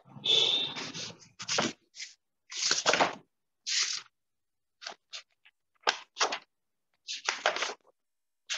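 About a dozen short bursts of rustling and handling noise through a video-call microphone, each cut to silence between by the call's noise suppression.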